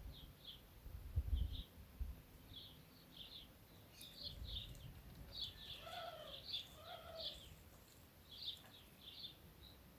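Small birds chirping in short, quick high notes throughout, with two lower, louder calls about six and seven seconds in. A few low rumbles in the first half.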